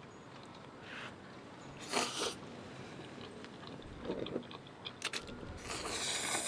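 A person slurping chopstick-lifted black-bean instant noodles and chewing: a short slurp about two seconds in and a longer one near the end, with chewing sounds between.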